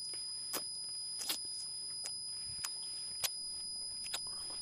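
Wet lip smacks and mouth clicks, about six scattered short ones, over a steady high-pitched tone.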